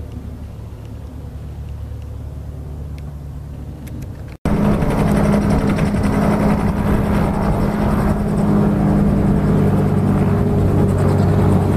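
A single-engine piston airplane's engine running steadily at low power on the ground. About four seconds in the sound cuts to a much louder Robinson helicopter running on the ground with its rotor turning, a steady drone with a fast flutter.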